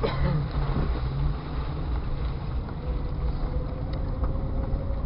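1999 Jeep Cherokee XJ driving slowly off-road, heard from inside the cabin: a steady low rumble of engine and drivetrain, with a faint steady whine coming in about a second and a half in.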